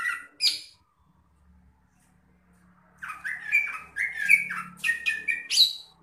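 Caged green leafbird (cucak ijo) singing. A few sharp notes come at the start, then a pause, and from about three seconds in a fast run of varied chirping notes jumping up and down in pitch, ending on a high note.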